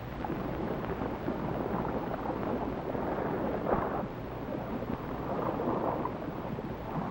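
Wind-and-sea sound effect: a steady rushing noise that swells now and then.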